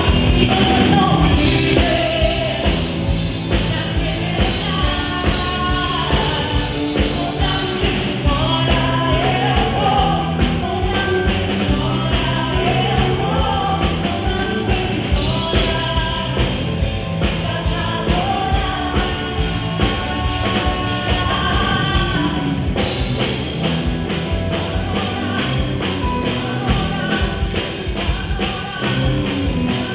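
A band playing a gospel rock song with a lead singer, drum kit keeping a steady beat.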